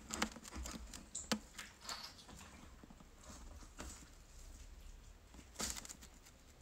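Whole roast turkey being torn apart by hand: faint, scattered crackles and clicks of meat and skin as the leg is pulled away, with a sharper click just over a second in and a short louder scrape as a table knife works at the carcass near the end.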